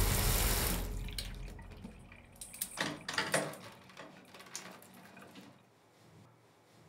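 Running water that fades out over the first couple of seconds, followed by a cluster of irregular drips and splashes, then a few faint drips.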